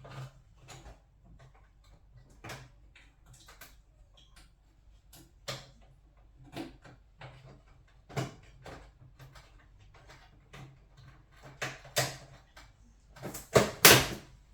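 Irregular clicks and knocks of tools and parts being handled during hands-on work, with a louder cluster of knocks near the end.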